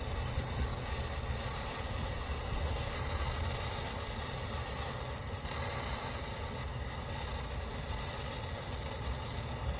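Wind buffeting the microphone over the steady rushing of a soldering torch flame heating copper pipe.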